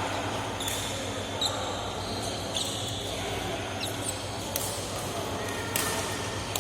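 Game play on an indoor court: sharp hits roughly once a second, with short high squeaks of shoes on the floor, over the hum of a large hall.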